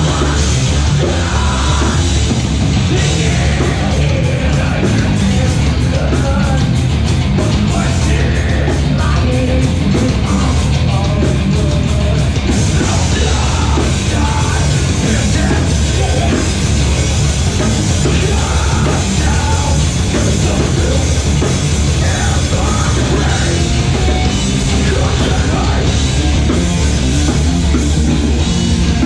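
Live metalcore band playing loud and steady: distorted electric guitars, bass and drums, with a screamed vocal over them.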